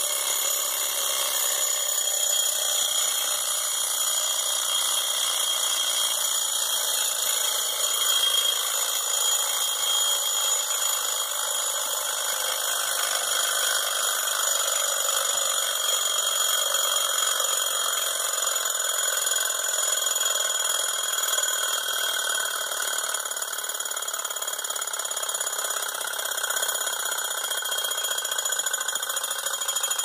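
Mechanical alarm of a Roger's antique wall clock going off: the hammer beats rapidly on the bell, making a steady, continuous metallic ring that starts suddenly and does not let up.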